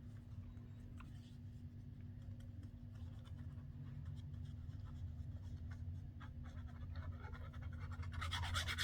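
Paper being handled and rubbed down, with faint scratching and small taps that grow busier and louder near the end, over a steady low hum.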